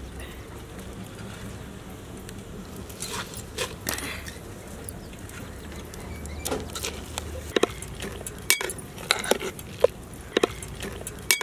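A steel slotted spoon clinking against the sides of a large metal pot while noodles are stirred in boiling water, with a run of sharp clinks in the second half.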